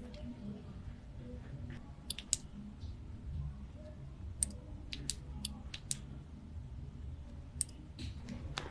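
Scattered sharp clicks and taps from hands handling a new smartphone and its packaging, over a low steady hum.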